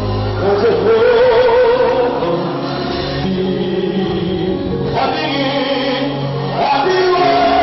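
A man singing a gospel song into a microphone, amplified through a PA, over band accompaniment with low bass notes; about a second in he holds a note with a wavering vibrato.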